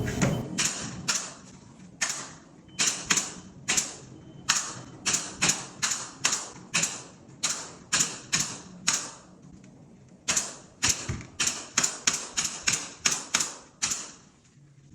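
Stapler firing staples into drywall corner bead: a rapid run of sharp clicks, two to three a second, with a short pause about two-thirds of the way through.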